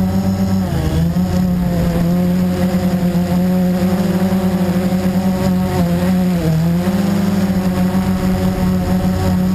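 Blade 350QX quadcopter's four brushless motors and propellers running in flight, heard close up from a camera mounted on the quad. The steady pitched hum dips briefly about a second in and again near six and a half seconds, then steps up as the throttle changes.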